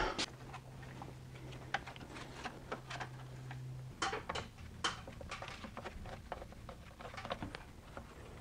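Faint, scattered light clicks and taps of small parts being handled around an engine bay, with a low steady hum through the first half.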